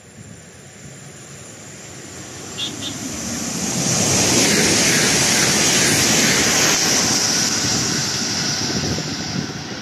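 Koleje Dolnośląskie electric multiple unit passing through a station at speed without stopping: a rush of wheels on rail and air with a strong hiss, growing from faint to loud over about four seconds, holding, then easing slightly near the end.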